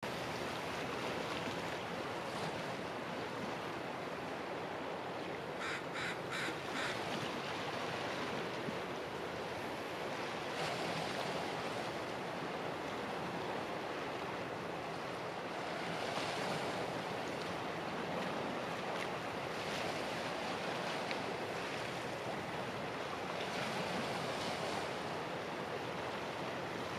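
Steady wash of small waves on open water, swelling gently now and then. About six seconds in, a bird calls four times in quick succession.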